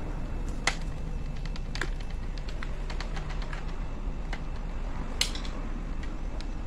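Light plastic clicks and snaps from the screen bezel of an Acer Z1402 laptop being pried loose by hand as its clips let go, with two sharper snaps, one just under a second in and one about five seconds in, over a steady low hum.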